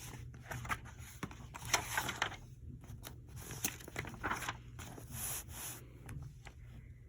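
Paper rustling and scraping in a string of short, irregular bursts: the pages of a picture book being handled and turned.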